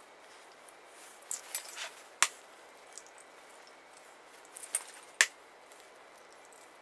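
Eggs being cracked on a bowl rim and separated: two sharp cracks about three seconds apart, with softer taps and shell-handling noises around them.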